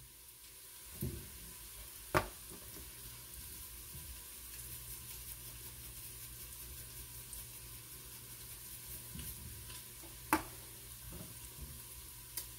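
Seasoned onion, bacon and garlic mixture sizzling steadily in a frying pan, with a few sharp clicks against the pan while it is stirred, the loudest about two seconds in and again about ten seconds in.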